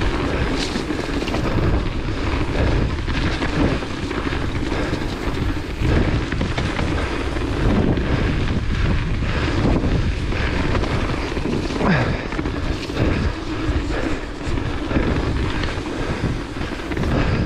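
Ride noise of a hardtail mountain bike descending a dirt singletrack fast: wind rushing over the GoPro's microphone, tyres rolling on dirt, and the frame and chain rattling over bumps. One short falling squeal comes about two-thirds of the way through.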